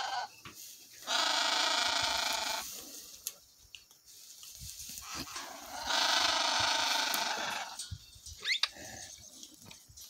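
Two long, loud animal calls, each about a second and a half long, about a second in and again about six seconds in. A short, high rising-and-falling whistle follows near the end.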